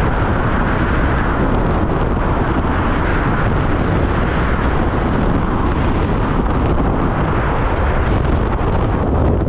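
Skydiving freefall wind: a loud, steady rush of air blasting over the microphone.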